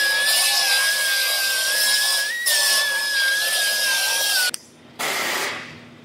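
Handheld right-angle grinder with an abrasive disc running steadily as it scuffs the bonding flange of a new door skin to bare metal, prep for panel bond. Its high whine wavers a little under load, then cuts off suddenly about four and a half seconds in, followed by a short burst of hiss.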